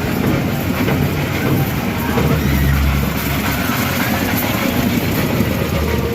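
Steady low engine hum, swelling slightly a couple of seconds in, over a noisy background with faint voices.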